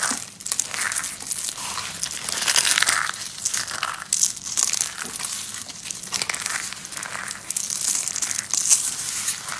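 Dry vintage soap being crushed: a dense, continuous stream of small cracks and crumbling with no pauses.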